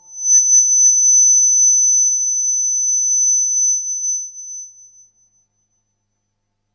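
A steady high-pitched tone that starts suddenly and fades away over about five seconds, with a few faint clicks at its start.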